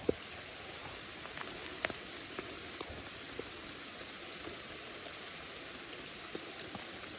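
Steady heavy rain falling, an even hiss of rain on water and ground, with a few scattered sharp ticks of drops.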